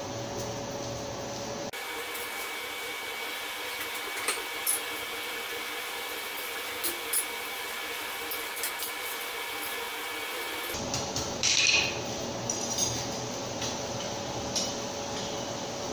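Steady whirr of a coal forge's air blower, with occasional light metallic clinks of steel rods and tongs being handled, and a short louder scrape about three quarters of the way in.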